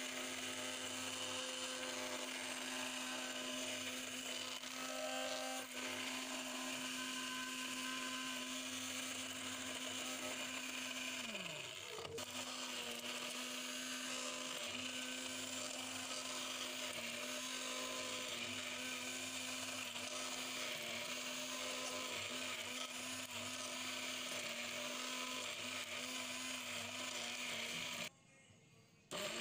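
Electric stick blender running steadily in a bowl, whisking beaten eggs and sugar together into a foamy mix. Its motor hums at one pitch. About eleven seconds in the motor winds down in pitch and then speeds back up, and near the end the sound cuts out for about a second before it runs again.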